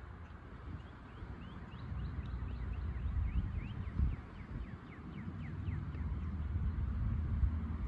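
Wind rumbling on the microphone, with faint short high chirps coming and going through the middle of the stretch.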